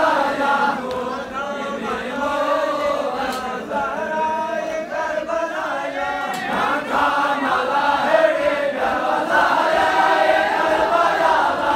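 A large crowd of men chanting a Shia mourning lament (noha) together, the voices rising and falling in unison.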